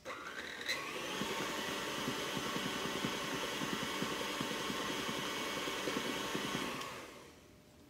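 Electric stand mixer switched on, its motor whirring up to speed within about a second and running steadily while the beater churns through mashed potatoes with soft, irregular thumps. Near the end it is switched off and winds down.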